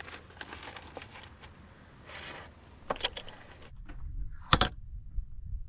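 Small handling clicks and rustles, then a run of sharp metallic clicks near three seconds in. One loud metal clack follows about four and a half seconds in as the clamp-latch lid of a stainless steel coffee canister is opened.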